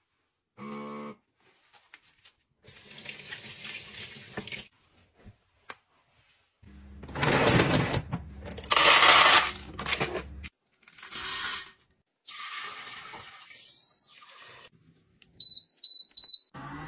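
Dry grains rushing out of a rotating countertop grain dispenser in several pours, the loudest lasting a few seconds in the middle. Near the end, three short high beeps from the touch control panel of a soy milk maker as its buttons are pressed.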